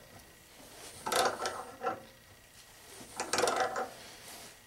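Steel pliers jaws scraping and clacking on a bolt's hex as the bolt is forced round through a Stover lock nut, whose deformed threads resist turning, in a few short metallic bursts.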